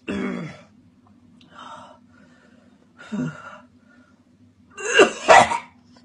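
A man gagging and retching at a dirty nappy: four short, harsh heaves, the loudest a double heave about five seconds in.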